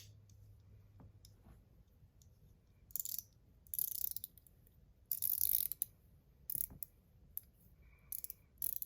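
ACEdc ratchet ring, set up with a single ball detent, spun by hand: after a few faint handling clicks, about five short runs of rapid ratchet clicking, each lasting under a second.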